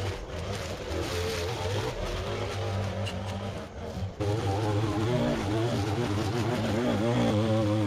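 Gas string trimmer running at high throttle and cutting grass, its engine note wavering up and down. About four seconds in it becomes abruptly louder and closer.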